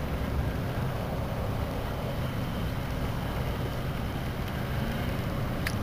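Steady low rumble of wind buffeting the microphone aboard an open bass boat, with a couple of faint clicks near the end.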